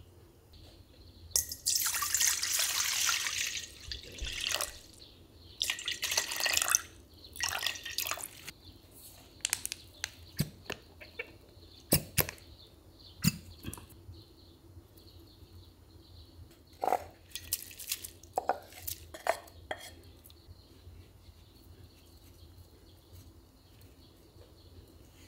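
Water running or pouring in three bursts during kimchi jjim preparation, followed by scattered knocks and clatters of cookware and utensils.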